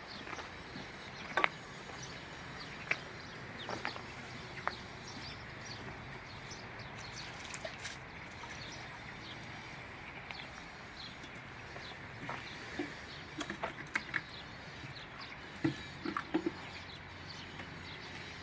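Outdoor farmyard ambience: a steady hiss with scattered faint bird chirps and occasional sharp clicks and knocks.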